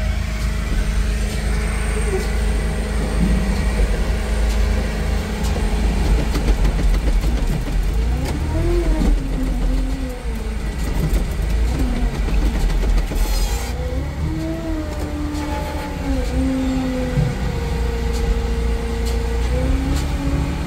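ZW50 wheel loader's engine running, heard from inside the cab over a steady low machinery drone; its pitch rises and falls several times from about eight seconds in as the loader works. A brief hiss about thirteen seconds in.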